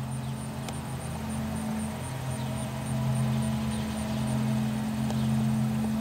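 Outdoor ambience with the siren silent: a steady low mechanical hum, a little louder after a couple of seconds, and an insect chirping in a regular high-pitched pulse a few times a second.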